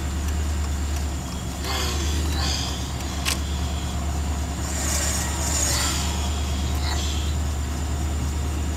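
Steady low drone of a pickup truck's engine and road noise heard inside the cab while driving slowly, with a single sharp click about three seconds in.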